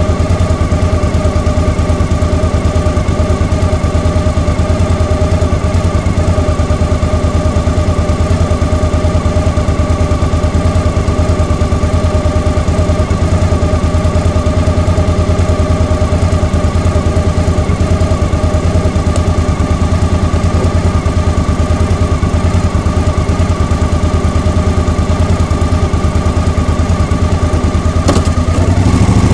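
Vehicle engine idling steadily at a standstill, its pulsing exhaust picked up close by a camera mounted on the vehicle's rear.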